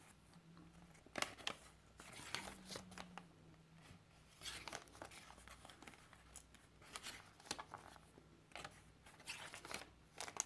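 Faint rustling and soft clicks of paper and card being handled as the pages of a handmade junk journal are turned, in short scattered bursts.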